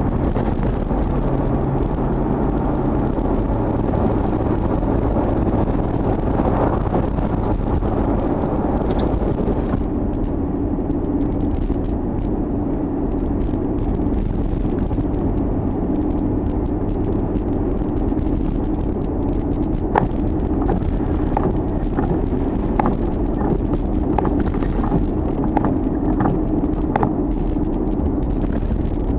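Chevrolet Tahoe driving, with a steady engine and road drone. About two-thirds of the way in come short, high chirps, one roughly every second, from the bad, slipping drive belt.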